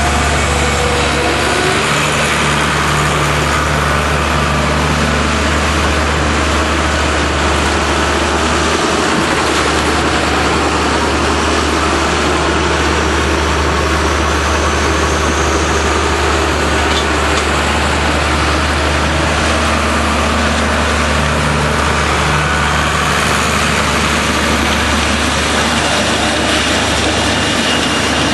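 Tractor diesel engine running steadily, a deep, even drone with no change in pitch.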